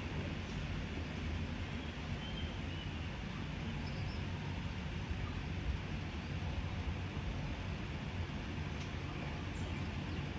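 Steady low hum and hiss of background noise, with a few faint bird-like chirps.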